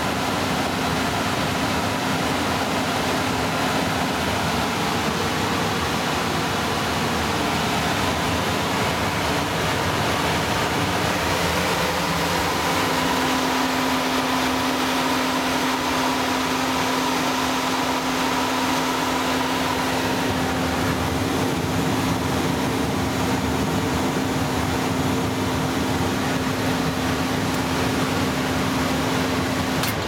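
1986 Carrier 58GP075-3 natural-gas forced-air furnace running normally: a steady rush of the burner flames and blower with a hum under it that shifts slightly in pitch about twelve seconds in.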